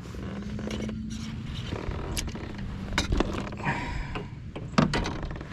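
Scattered clicks, knocks and scrapes of fishing gear being handled aboard a plastic kayak, with a steady low hum from just after the start until almost four seconds in and a louder knock near the end.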